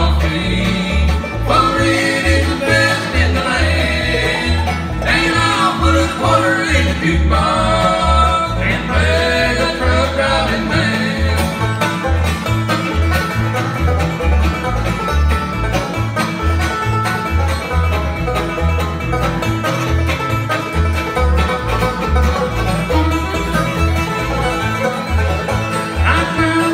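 Live bluegrass band playing: banjo, acoustic guitar and fiddle, over a steady low bass pulse. A bending fiddle melody stands out in the first half.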